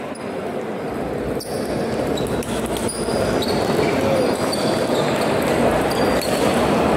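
Table tennis ball clicking off paddles and the table in a rally, over the steady hubbub of a busy sports hall where other tables are in play. The hall noise swells over the first few seconds.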